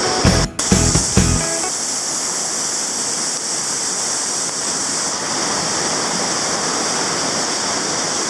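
Background music with a bass beat ends about a second and a half in, leaving the steady rush of flowing water in a canyon, such as a waterfall or stream.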